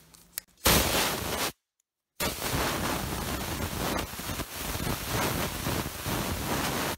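Lathe spinning a CA-patched Alumilite resin pen blank while a turning tool cuts its surface: a steady hissing scrape that starts suddenly about two-thirds of a second in and drops out briefly about a second and a half in.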